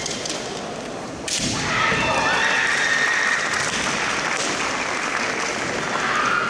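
Kendo bout: a sharp crack of a bamboo shinai strike about a second in, followed by a long, high-pitched kiai shout from the fencers. Another, shorter shout comes near the end.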